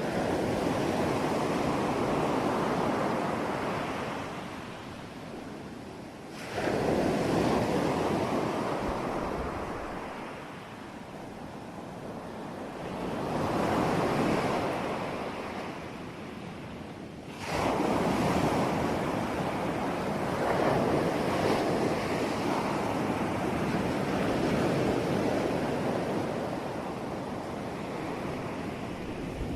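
Sea waves breaking, about four in turn, each one surging in and then washing away; two of them crash in abruptly.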